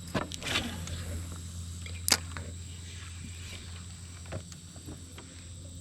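Steady low hum of an electric trolling motor pushing the boat, with a few clicks and knocks of gear on the boat, the sharpest about two seconds in.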